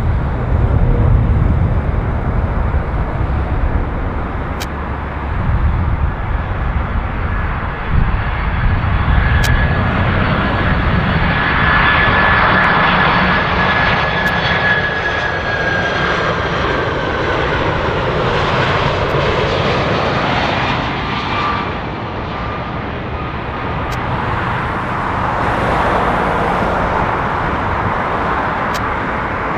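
Boeing 747-400 jet airliner on final approach, its four engines giving a steady rumble with a high fan whine that swells as the aircraft passes close by. The whine drops in pitch as it moves away toward the runway.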